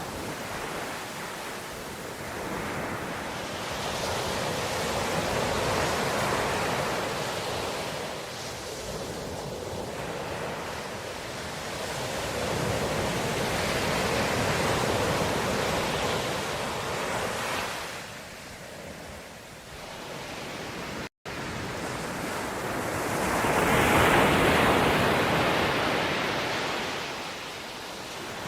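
Ocean surf: waves breaking and washing in, swelling and fading in three long surges, the last the loudest. About three-quarters of the way through, the sound cuts out for a split second.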